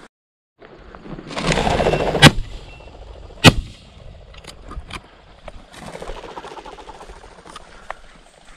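Two shotgun shots about a second apart, fired at a covey of game birds as it flushes from in front of pointing dogs. Just before the first shot there is about a second of loud rushing noise.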